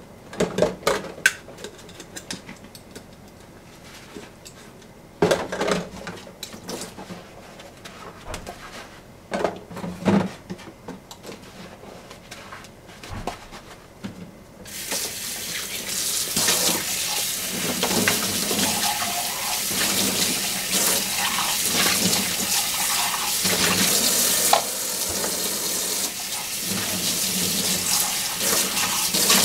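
Dishes being washed by hand in a soapy kitchen sink: cups knock and are scrubbed, with scattered clatters. About halfway through the tap is turned on and water runs steadily as a cup is rinsed under it.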